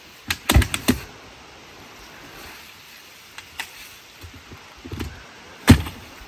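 Sharp knocks and clicks over a faint steady hiss: a quick cluster of four or five about half a second in, a few light ticks after that, then one loud knock near the end.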